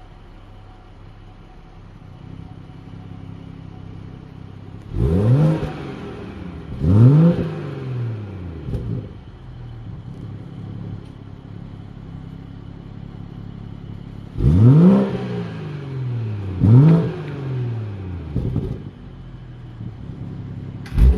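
BMW 440i Gran Coupé's stock exhaust, its 3.0-litre turbocharged straight-six idling and blipped twice in quick succession about a quarter of the way in, then twice again past the middle. Each rev rises sharply and falls quickly back to idle, and another rev starts right at the end.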